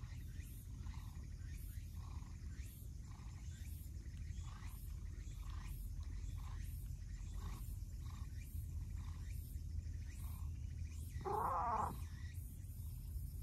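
A cat meows once, loudly, about eleven seconds in: a single short call that bends in pitch.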